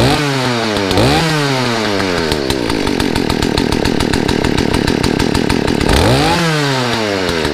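Poulan Pro PPB3416 34cc two-stroke chainsaw engine running, revved three times: each rev climbs sharply and sags back toward idle, with a steadier stretch in between. It does not want to idle, which the owner thinks may be the carburetor flooding.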